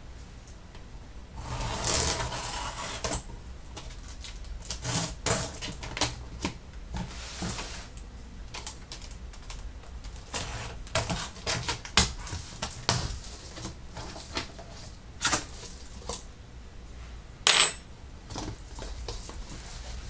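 Boxes and computer parts being moved around and set down on a workbench: a rustle about two seconds in, then a run of scattered clicks and light knocks, with a sharper knock near the middle and another near the end.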